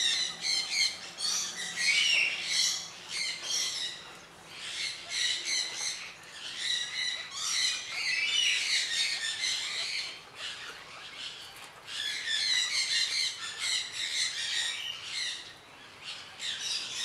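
Many birds chirping busily over one another, in bursts of a few seconds with short lulls between.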